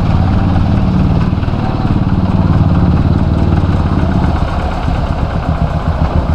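Vehicle engines running close by, a bus moving slowly through floodwater among motorcycles. The loud, low engine drone turns to a choppier pulsing about four seconds in.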